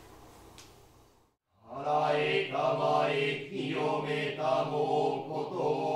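Faint room tone, then from about a second and a half in a man's voice chanting a Shinto prayer (norito) in long, drawn-out, nearly level tones with short breaths between phrases.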